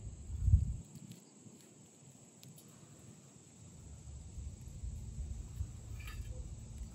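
Faint crackling of soft, rotten water oak punk wood being broken apart by hand and packed into a char tin, over a low rumble of wind on the microphone. The rumble is loudest just after the start.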